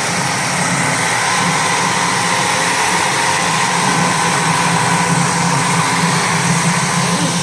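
Chainsaw running steadily at an even speed.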